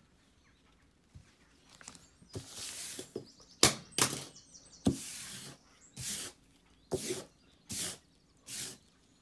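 A large hardcover book being handled while its paper dust jacket is taken off: short bursts of paper rustling, about one a second, with two sharp knocks a few seconds in that are the loudest sounds.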